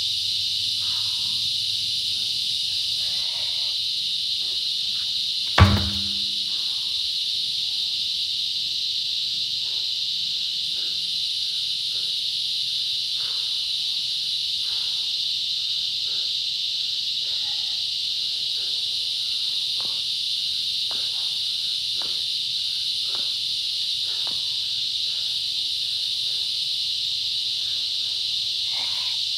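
Steady high-pitched insect chorus, with one heavy thump about six seconds in as a large truck tire is flipped and lands on the ground.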